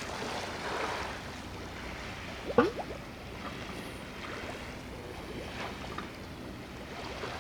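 Harbourside ambience: steady wind and water noise. About two and a half seconds in there is one short, sharp sound with a gliding pitch, and a few fainter short sounds before and after it.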